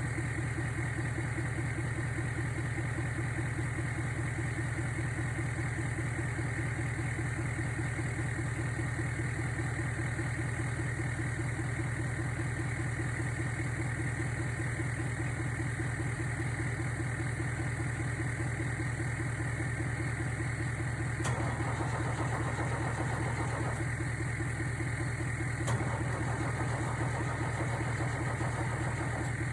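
Steady mechanical running of a motor or engine with a fast, even pulse. There is a short click about 21 seconds in and another near 26 seconds.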